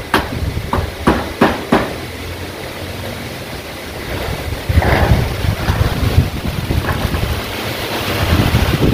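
Strong gusting wind buffeting the microphone with a heavy low rumble, growing louder about four seconds in. A few sharp knocks sound in the first two seconds.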